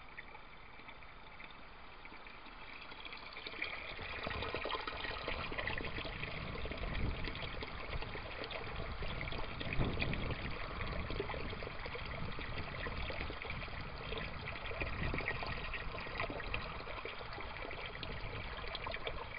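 Water trickling and pouring into a tub as the pump refills it, fainter at first and louder and busier from about four seconds in.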